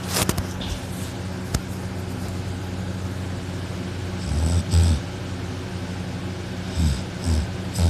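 A man snoring loudly while sleeping on his back with his mouth open. There are two rough, low snores, one about halfway through and one near the end, each in two quick parts, over a steady low hum.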